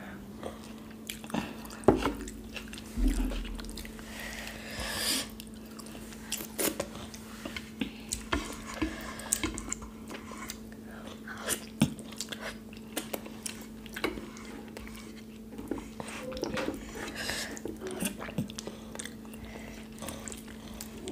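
Close-miked eating sounds: fingers mixing wet rice and kadhi (yogurt curry) on the plates and mouths chewing, in many short, irregular wet clicks and smacks. A steady low hum runs underneath.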